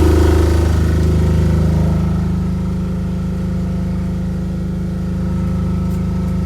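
Boat's diesel generator set running steadily, a low, even engine hum heard close up. It eases slightly about two seconds in.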